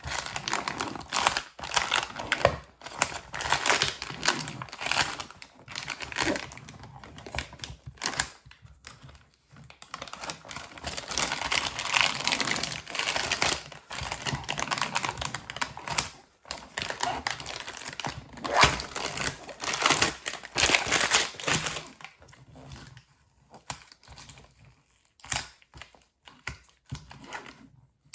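Plastic crinkling and scraping as a protective cover is worked loose and pulled off the back of a MacBook Pro, in dense irregular bursts that thin out over the last several seconds.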